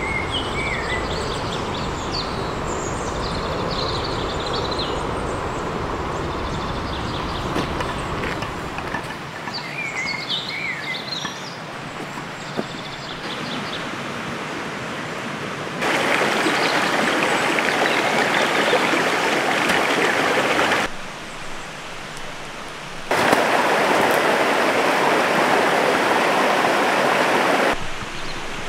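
Forest stream ambience: songbirds chirping over running water, with a low rumble under the first third. About halfway through, the water jumps abruptly to a loud, even rush, drops back for a couple of seconds, then jumps up again.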